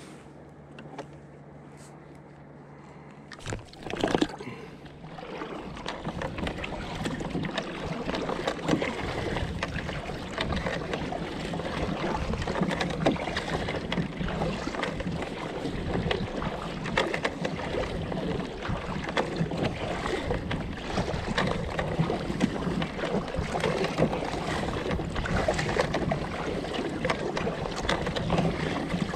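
Kayak paddle blades dipping and splashing through calm sea water as the kayak is paddled, with wind on the microphone. The paddling noise takes over about five seconds in, after a few quieter seconds and a sharp knock.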